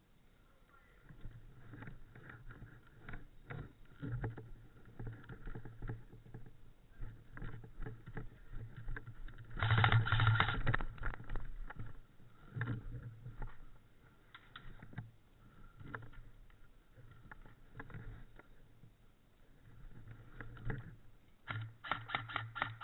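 Scattered clicks and knocks of airsoft play, with a dense burst of rapid clicking about ten seconds in and another rapid string of clicks near the end, typical of airsoft guns firing.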